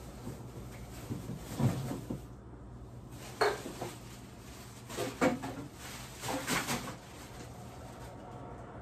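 Household objects being handled: a handful of separate knocks and clatters, like cupboard doors and dishes, spaced a second or two apart.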